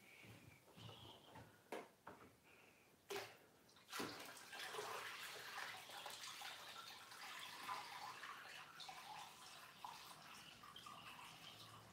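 A few light knocks, then, about four seconds in, a faint steady rush of water being poured from a jerry can into a reef aquarium.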